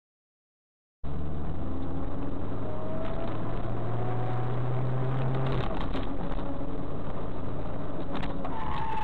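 Engine and road noise from a moving car, heard from inside through a dashcam, starting abruptly about a second in. The engine note climbs slightly and then drops at about five and a half seconds, and a short higher tone sounds near the end.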